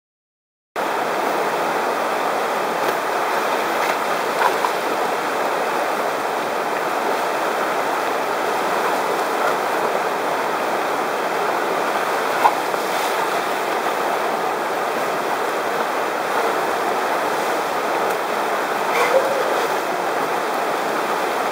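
River rapid rushing steadily, a whitewater wave pouring over rocks; the sound cuts in abruptly about a second in. A few faint clicks stand out now and then.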